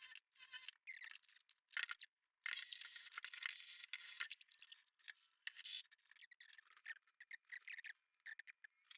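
Hand scraping or sanding at rust on the van's bare sheet-metal floor, faint, in irregular scratchy strokes with short gaps between them.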